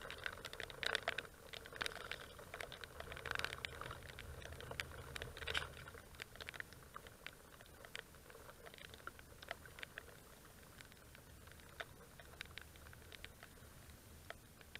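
Irregular light ticks of raindrops striking the camera housing, thicker in the first few seconds and sparser after, over a faint low rumble.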